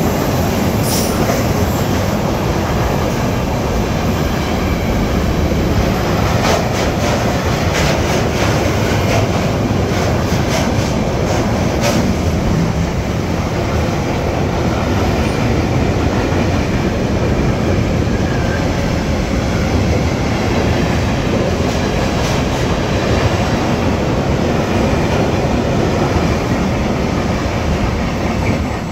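Container freight train wagons rolling past at speed close by: a loud, steady rumble of wheels on the rails, with a run of sharp clicks between about six and twelve seconds in.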